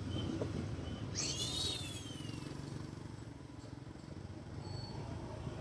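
Motorcycle engine running steadily at low speed, with a high whistle that rises and then falls about a second in and a couple of short high chirps.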